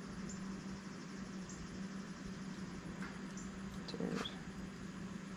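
Meishan piglet, held on its back, gives a brief grunt about four seconds in, over a steady low hum.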